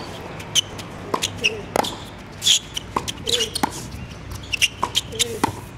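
Tennis rally on a hard court: sharp pops of balls struck by rackets and bouncing on the court surface, coming irregularly, several a second at times, with the loudest hit about two and a half seconds in.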